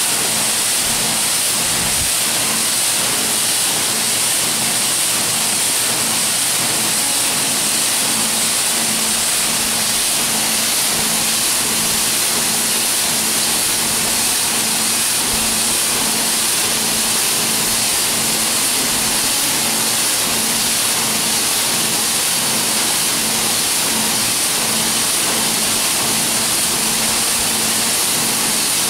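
Flat-pan roaster emptying its load: a steady rushing hiss of small roasted grains pouring from the tilted pan onto a stainless-steel hopper, over a steady motor hum.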